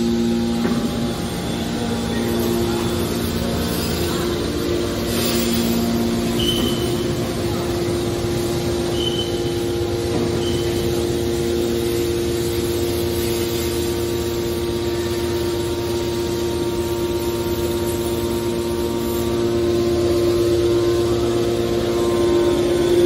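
Hydraulic iron scrap baler running, its power unit giving a steady hum and whine with no let-up. A few brief high-pitched tones sound between about six and eleven seconds in.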